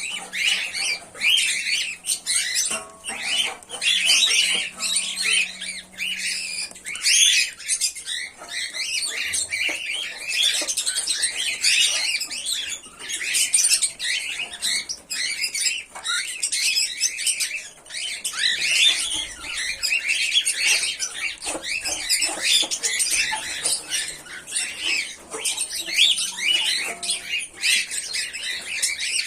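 Pearl cockatiels chirping and squawking: a dense, unbroken run of short, high calls.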